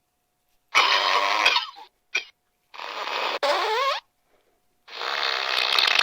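Dr. Fart novelty keychain playing recorded fart sounds through its small speaker. There are three separate farts after a short silence. The second ends in a rising squeal, and the third is longer and starts about five seconds in.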